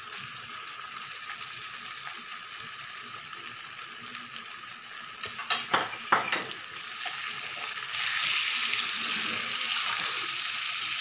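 Chopped mutton sizzling in hot sesame oil and masala in a kadai while being stirred with a wooden spatula. A few sharp knocks of the spatula against the pan come just before the middle, and the sizzle grows louder about eight seconds in.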